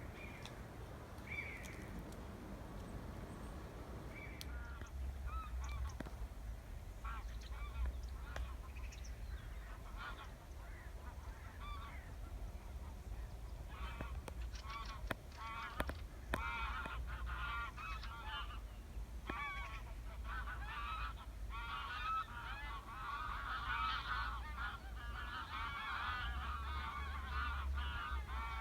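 A flock of geese honking in flight, scattered calls at first that build into a dense, overlapping chorus over the last several seconds.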